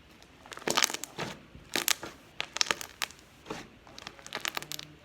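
Homemade slime being squeezed and worked by hand, giving irregular bursts of crackling and popping.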